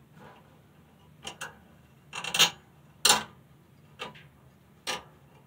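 Ratchet gear of a homemade vertical centrifugal casting machine clicking past its spring-loaded pawl as the spring shaft is turned by hand. There are about six sharp metallic clicks at uneven intervals, the loudest two around two and three seconds in. Each click is the pawl dropping in and locking the gear against turning back.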